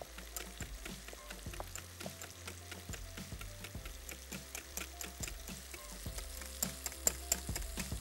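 Wire whisk beating yogurt in a glass bowl, its wires clicking quickly against the glass several times a second, the clicks growing brisker near the end. Soft background music underneath.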